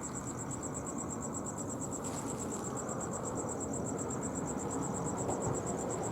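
A cricket chirping in a steady, rapid, evenly pulsed high trill, over a low background rumble, with a faint knock about two seconds in.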